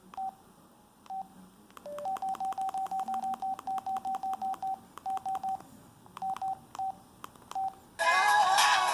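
Keypad beeps from an LG Helix UX310 mobile phone: short beeps at one pitch, each with a key click. A few come scattered, then a fast run of about six a second, then a few more, one of them lower. About eight seconds in, a ringtone starts playing music.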